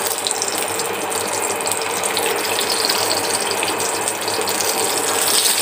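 Chicken shami kababs frying in hot ghee on a tawa: a steady, dense sizzle of fine crackles.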